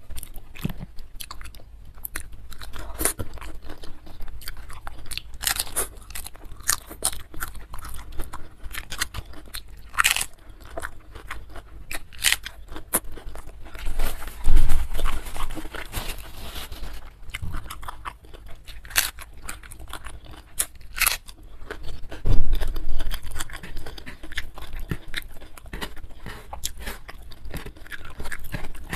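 Close-miked chewing and crunching as a person eats by hand, with the crisp crunch of raw cabbage leaf among mouthfuls of rice. There is a louder spell of crunching about halfway through, and a low thump a few seconds later.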